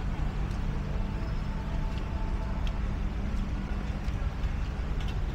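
Steady low rumble of a bus's diesel engine idling close by, over a haze of traffic noise on a wet street. A few faint clicks are scattered through it.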